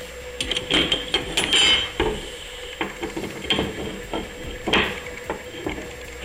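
Aluminium T-track lengths clattering and knocking as they are handled and set into slots in an MDF wasteboard: a run of light metallic clicks and rattles in the first two seconds, then single knocks spaced a second or so apart.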